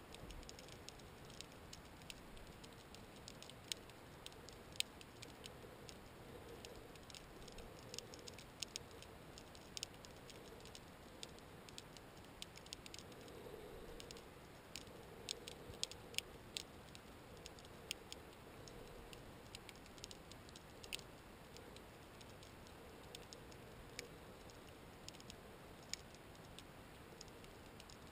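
Faint, irregular sharp clicks and crackles heard underwater, a few louder snaps standing out among many soft ones.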